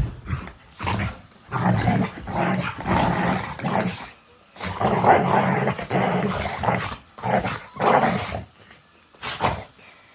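A dog growling in several long stretches with short pauses between them, followed by two short sharp sounds near the end.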